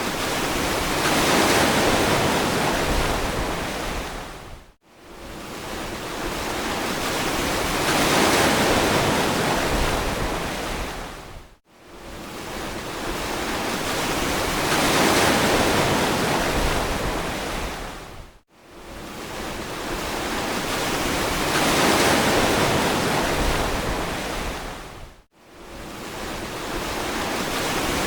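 Ocean waves breaking and washing on a beach: a steady rush of surf that swells to a peak and fades away about every seven seconds. Between swells the sound cuts out briefly four times, at even spacing.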